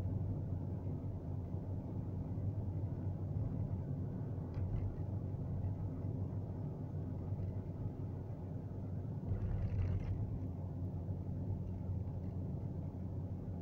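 Steady low rumble of a car driving along a paved road, engine and tyre noise together. A short hiss comes a little over nine seconds in.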